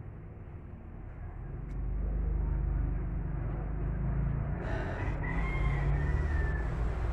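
A rooster crowing once, about five seconds in, over a steady low rumble that swells about two seconds in.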